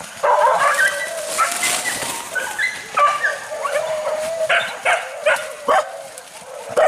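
Hunting dogs baying in full cry while chasing a wild boar: long, overlapping cries at several pitches, then a run of short, sharp yelps about every half second near the end.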